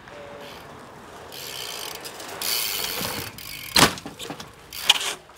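BMX bike rolling on skatepark concrete with its rear hub's freewheel ratchet clicking. About four seconds in comes one loud impact as the bike lands, and a smaller knock about a second later.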